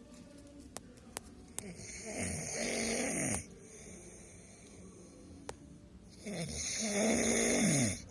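A person snoring heavily while asleep: two long snores about four seconds apart, each lasting about a second and a half with a wavering pitch. A few faint clicks fall between them.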